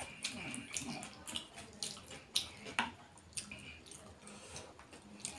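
Wet eating sounds of a person eating fish curry and rice by hand: fingers squelching through the curry and picking fish from the bone, with irregular sharp smacks and clicks.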